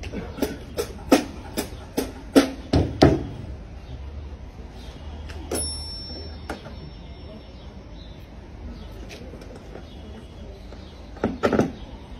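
Sharp percussive knocks from a one-man-band rig being handled and set up, about eight in the first three seconds. A brief metallic ring comes about five and a half seconds in, and two more knocks come near the end.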